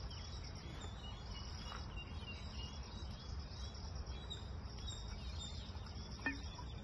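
Outdoor ambience: a steady high insect chirring with a few faint bird chirps over a low background rumble, and one sharp click about six seconds in.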